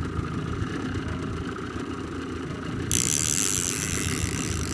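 Boat motor running steadily at low speed. About three seconds in, a hiss gets louder over it.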